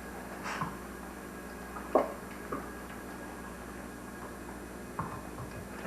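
A few short, scattered knocks over a steady low hum, the loudest about two seconds in.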